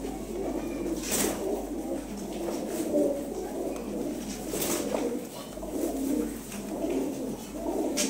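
A flock of domestic pigeons cooing together, many overlapping coos without a break, with a couple of brief sharp noises about a second in and near five seconds.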